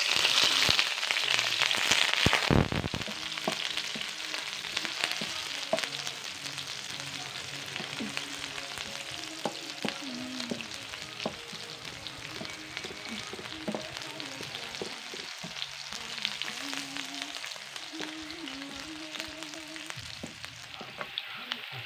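Food frying in a hot pan: a loud sizzle for the first two and a half seconds, then settling to a steadier, quieter sizzle, with small clicks of stirring.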